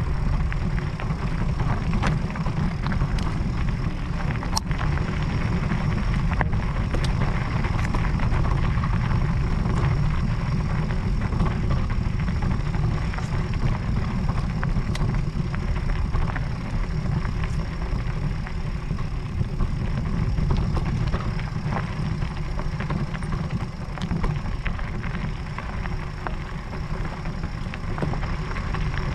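Steady low rumble of wind on the microphone mixed with an e-mountain bike's tyres rolling over a gravel track, with scattered small clicks and rattles.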